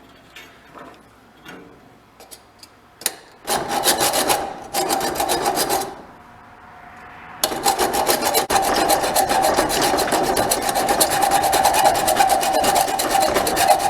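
Hacksaw cutting through a small metal piece: a short run of fast strokes, a brief pause, then a long stretch of steady fast sawing with a ringing note that continues until the cut is through near the end.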